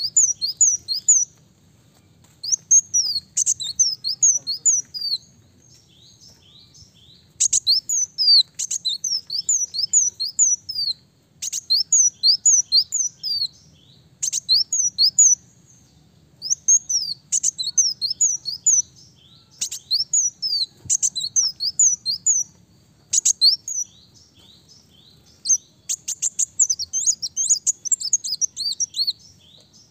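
Ruby-cheeked sunbird (kolibri daun) singing: bouts of rapid, high, sharp chirps, each lasting a second or two, repeated again and again with short pauses between them.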